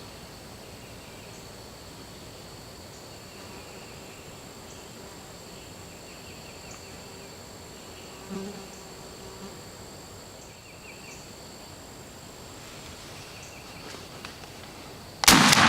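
A steady, high-pitched insect drone, then near the end a single loud shotgun shot, fired at a gobbler, that cuts in suddenly and dies away with a long echo.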